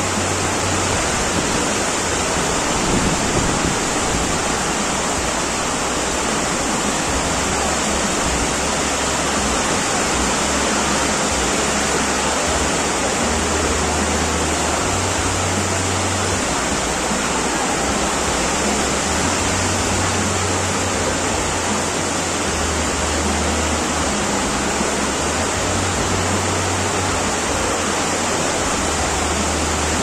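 Heavy downpour: a steady, loud hiss of rain pouring onto roofs, cars and pavement, with a low rumble that comes and goes.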